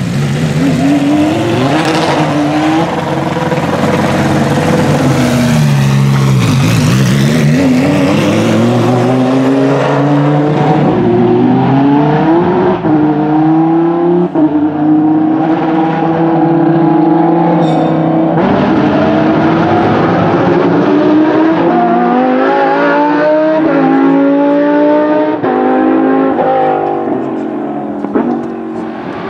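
Lamborghini Huracán Super Trofeo EVO race car's naturally aspirated 5.2-litre V10 accelerating hard. Its pitch climbs and then steps down at each upshift of the sequential gearbox, again and again.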